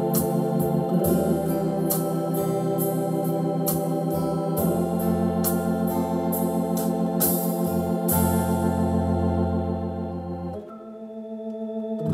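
Yamaha PSR-750 keyboard playing its Hammond B-3-style organ voice: sustained chords struck in a steady rhythm over a bass line. About ten and a half seconds in it drops to a softer held chord, then swells back up near the end.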